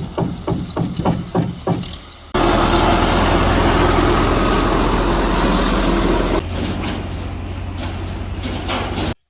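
Building repair work: evenly spaced knocking, about three strikes a second. After a sudden cut comes a loud, steady machine noise with a low hum. It changes character at a second cut and stops abruptly near the end.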